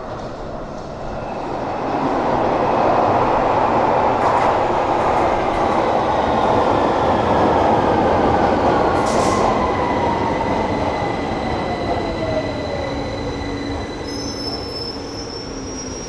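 Passenger train running on rails: its rumble swells over the first few seconds, holds, then eases off, while a whine falls steadily in pitch. A thin, high wheel squeal comes near the end.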